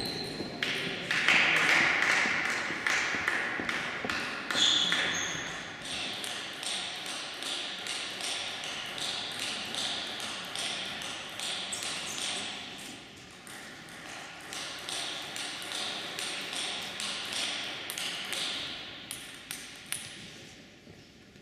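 Table tennis balls clicking against tables and bats, several light ticks a second, fading toward the end.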